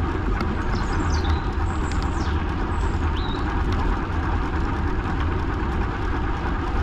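Steady wind rumble on the microphone and rolling noise of a ride along a path, with a few short high chirps about one to three seconds in.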